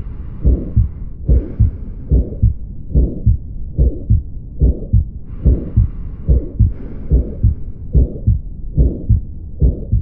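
Heart sounds of aortic valve stenosis heard through a stethoscope: a steady lub-dub at about 75 beats a minute, with a whooshing crescendo-decrescendo murmur between the beats that partly masks the first and second heart sounds. The murmur is the characteristic sign of the narrowed aortic valve.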